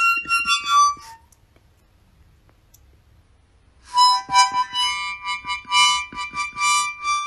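A tiny keychain harmonica sounded by a pet rat breathing into it. A quick run of reedy notes lasts about a second, there is a pause of nearly three seconds, and then held chords pulse with each breath from about four seconds in.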